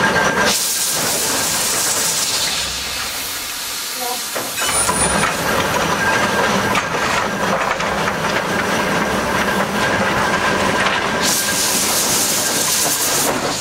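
Ruston Proctor steam excavator working, its steam engine hissing steadily while it hoists the loaded dipper. The hiss eases briefly about four seconds in, then picks up again with a low hum under it.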